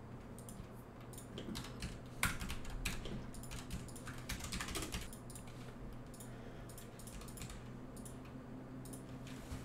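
Computer keyboard keys tapped in irregular short runs while shortcuts are pressed and an object name is typed, over a faint steady low hum.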